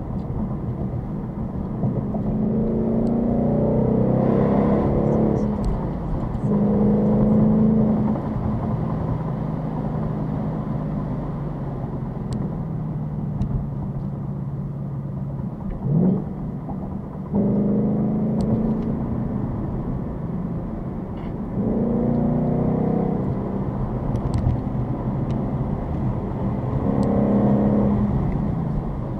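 Ford Mustang GT's V8 engine running under way, rising in pitch in several short acceleration pulls with steadier cruising between them, and a quick sharp rev near the middle.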